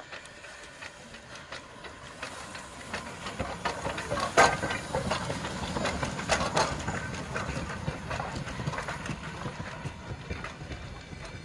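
Steam locomotive passing close under power: rapid exhaust chuffs and steam hiss with the clank of the running gear, building to the loudest with two sharp blasts around the middle, then easing off as it moves away.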